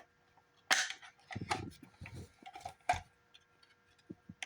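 Plastic fire alarm cover being handled: a few sharp clicks and knocks, the strongest about a second in and again near three seconds, with small ticks between.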